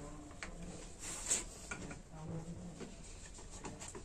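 Faint light clicks and taps of metal parts being handled as the gear housing of a Planet Power ED10 polisher is fitted back onto its motor body, one sharper click about a second in.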